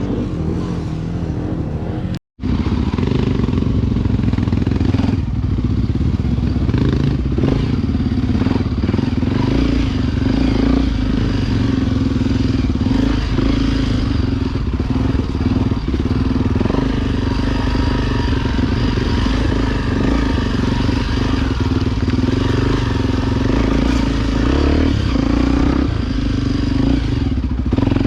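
Honda XR Tornado 293 single-cylinder enduro motorcycle engine running steadily under way on the trail. The sound cuts out for an instant about two seconds in.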